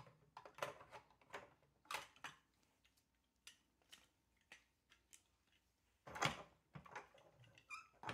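Hard plastic parts of a take-apart toy plane clicking and knocking together as they are handled, a string of sharp clicks with the loudest about six seconds in.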